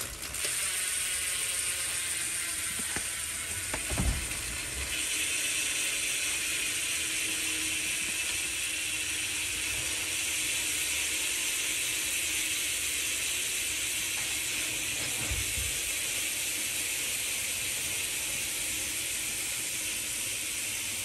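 BMX rear wheels with planetary-clutch freecoaster hubs spinning freely, their clutch mechanisms making a steady, fine, high freewheel buzz. The buzz gets louder about five seconds in. A dull knock comes about four seconds in and another around fifteen seconds.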